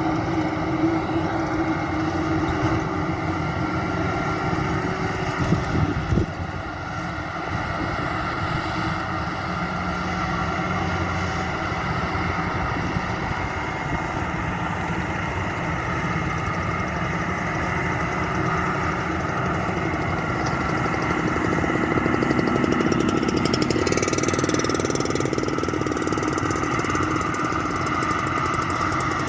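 Maxxi Bimo 102 rice combine harvester running steadily under work, its diesel engine and machinery making a constant mechanical drone with held tones. There is a brief knock about six seconds in, and a hissier rise in the sound near the end.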